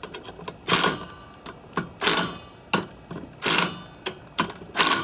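Ratchet wrench clicking as bolts are tightened into the hose reel's aluminium housing. It comes in four short runs of clicks about a second and a half apart, with lighter single clicks between.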